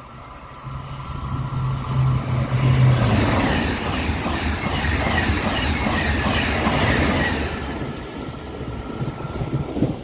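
TGV Duplex double-deck high-speed train running through at speed. Rushing wheel and air noise builds over the first two seconds, stays loud, then fades near the end. A low hum drops in pitch about three seconds in as the front power car goes by.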